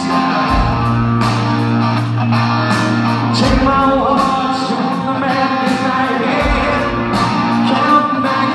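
Live country band playing through a large hall's PA: a male lead vocal over guitars and drums, with a steady beat and long held low notes.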